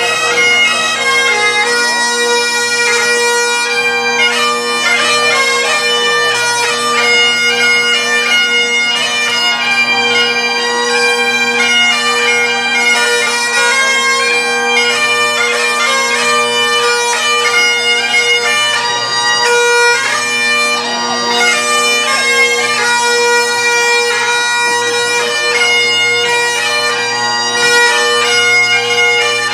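Bagpipes playing a tune, the melody notes moving over steady, unbroken drones.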